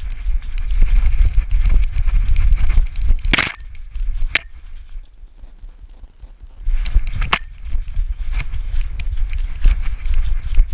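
A dog's rapid footfalls and rustling through dry leaf litter as she sprints, picked up by a GoPro on her back with the camera mount bumping and jostling. The running stops for about three seconds in the middle, with a couple of sharp clicks as she halts, then starts again.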